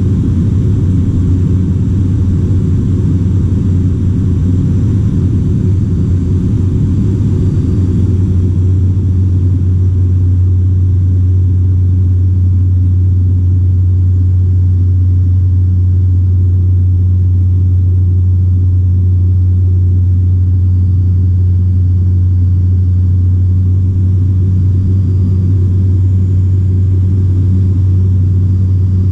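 Dynamic WT9 light aircraft's piston engine and propeller droning steadily in cruise, heard inside the cockpit as a loud, constant low hum.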